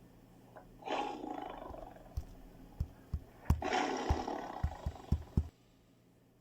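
An animal giving two rough, breathy calls, a short one and then a longer one, with scattered low thumps. The sound cuts off abruptly about five and a half seconds in.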